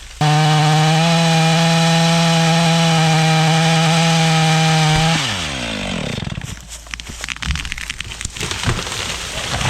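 Chainsaw engine held at full throttle with a steady high pitch, then released about five seconds in so the pitch slides down. A run of irregular sharp cracks and snaps follows, louder near the end.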